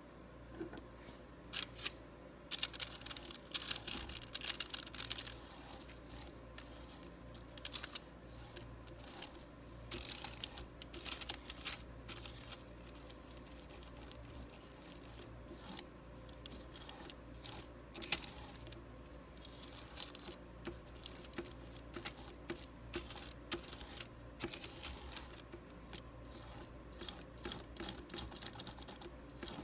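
Oil paint being stirred and smeared across a palette: irregular wet scrapes and soft clicks in uneven clusters, over a faint steady hum.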